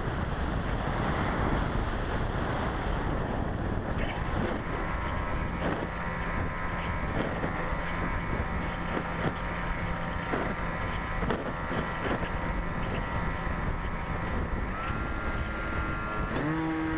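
Rushing airflow on the microphone of a camera mounted on a low-flying RC electric glider. For much of the time it comes with a steady whine from the electric motor and propeller, and there are a few sharp clicks. Near the end the whine rises in pitch as the motor speeds up.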